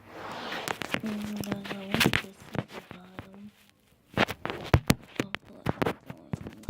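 Irregular clicks and knocks of slime-making supplies (bottles, bowl and utensils) being handled on a table. A steady low hum sounds twice in the first half.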